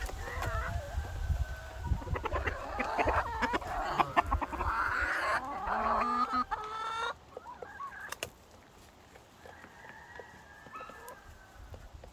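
Chickens, a rooster with his hens, clucking and calling, busy for the first seven seconds or so and then quieter, with one faint drawn-out call near the end.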